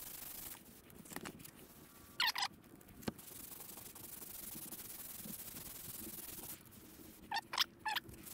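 Sandpaper rubbed by hand over guide-coated bodywork on a VW bus panel, a faint steady rasp of strokes; the guide coat is being sanded back to show up the high spots. Short high chirps stand out above it twice, about two seconds in and near the end.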